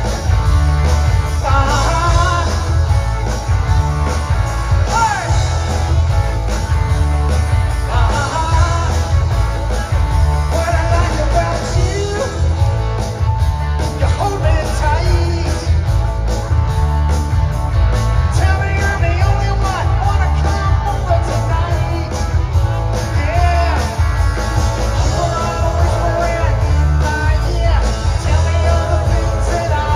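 Rock band playing live with electric guitars, bass and drums, heard from out in the audience with a heavy, boomy low end.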